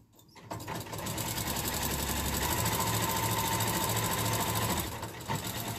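Electric domestic sewing machine fitted with a walking foot, stitching through several layers of fabric and wadding. It starts about half a second in, runs steadily at a fast stitch rate, and briefly eases off near the end before running again.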